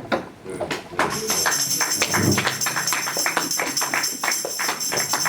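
Tambourine played in a steady beat of sharp strokes with ringing jingles, starting about a second in as church music begins.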